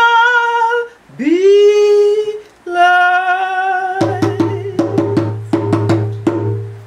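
A woman singing long held notes unaccompanied, sliding up into one of them about a second in. From about four seconds in, a quick run of sharp percussive knocks and a low steady drone join her. It all fades out at the end.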